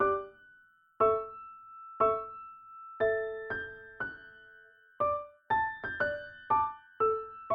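Slow piano or electric-piano music: single notes struck one at a time, each ringing and fading, about one to two a second, with a high note held over them.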